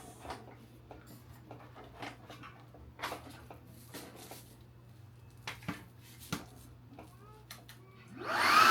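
A few faint clicks and knocks, then about eight seconds in the brushless motor of a Hoover Commercial CH91600 40-volt cordless upright vacuum switches on, quickly rising to a loud, steady high whine.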